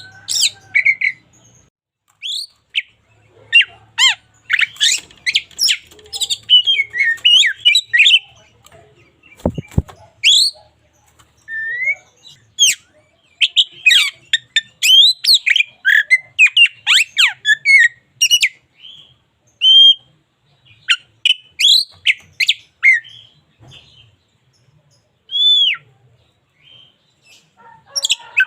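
Oriental magpie-robin singing: a varied run of loud whistles, chirps and quick trills in phrases separated by short pauses. There is a single knock about ten seconds in.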